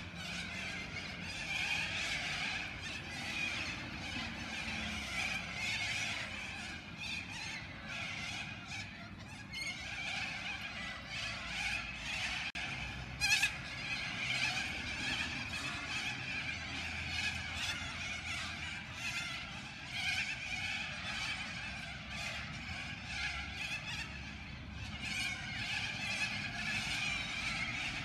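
A large roosting flock of little corellas calling all together: a dense, continuous chorus of many overlapping high screeches, with one louder call about halfway through.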